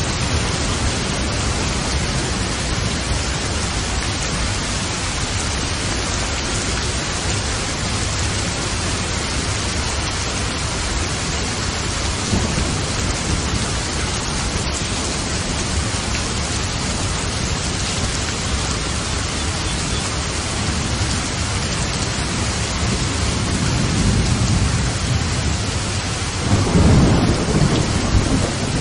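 Steady rain falling, with thunder rumbling low in the background and swelling into a louder roll near the end.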